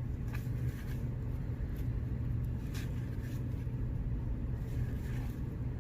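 Steady low background rumble, with a few faint light clicks of baseball cards being handled and flipped.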